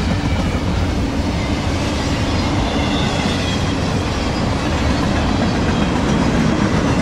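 A long train of empty intermodal freight cars rolling past on steel rails: a steady, heavy rumble of wheels on track. A faint high-pitched wheel squeal comes in now and then.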